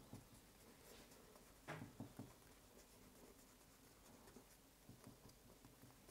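Near silence with faint handling sounds: soft taps and rubbing of fingers pressing and smoothing soft paste into waves, with a brief rustle just under two seconds in.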